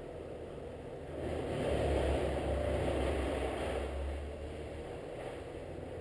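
A low, noisy rumble that swells about a second in and eases off after a few seconds.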